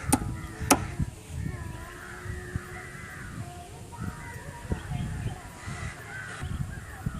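Crows cawing repeatedly, with two sharp clicks in the first second.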